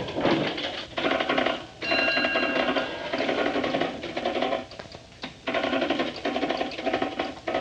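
Rapid mechanical clattering, coming in runs of about a second with short gaps between them.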